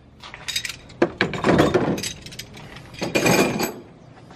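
Metal hand tools clinking and being shuffled around in a steel tool chest drawer: a few light clicks, a sharp knock about a second in, then two spells of rattling clatter.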